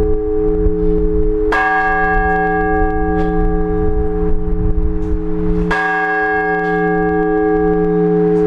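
A large church bell struck slowly, twice about four seconds apart, each stroke ringing on into the next. This is blagovest, the measured single-bell tolling that calls the faithful to the all-night vigil.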